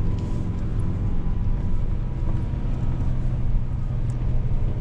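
Ford Ranger Raptor pickup driving slowly along a rough forest track in low-range four-wheel drive, heard from inside the cabin: a steady low engine drone over tyre and road noise, with a few faint knocks.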